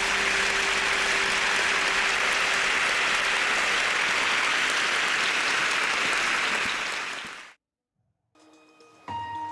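Audience applause for a skater taking the ice, steady for about seven and a half seconds and then cut off abruptly. After a brief silence, the skating programme's music begins near the end.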